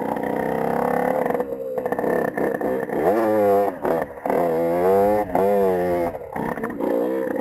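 Small dirt bike engine running while being ridden, its pitch climbing and falling several times in the middle as the rider works the throttle through the gears.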